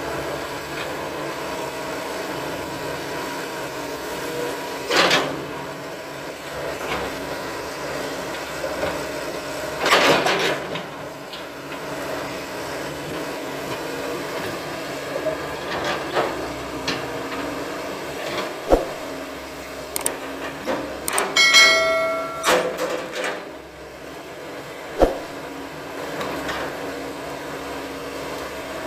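Crawler excavator's diesel engine running steadily under hydraulic load while its bucket shoves and drags coconut palm trunks down an earth bank. Heavy cracks and crunches of wood and soil come about five and ten seconds in, with sharp knocks later and a brief squeal about three quarters of the way through.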